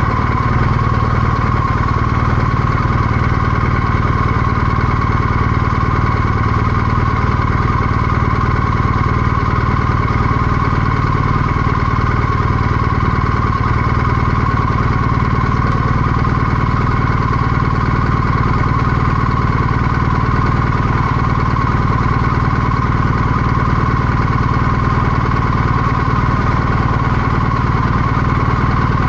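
BMW R1250GS motorcycle's boxer twin engine running at a steady, unchanging note, loud and even throughout.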